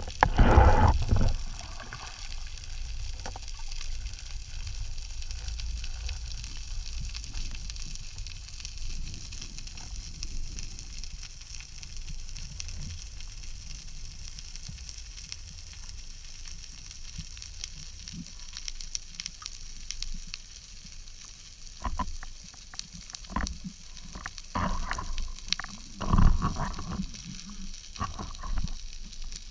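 Underwater sea ambience heard through a camera's waterproof housing: a steady fine crackling typical of snapping shrimp on a rocky reef. A loud low rush of water comes in the first second or so, and several dull knocks and swishes sound near the end as the diver moves.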